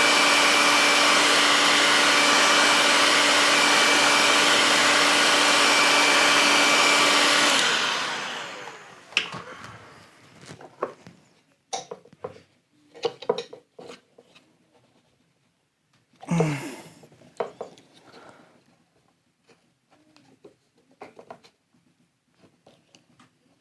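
Heat gun running with a steady whining blow, switched off about seven and a half seconds in and winding down. Then scattered clicks and knocks of small parts being handled, the loudest about sixteen seconds in.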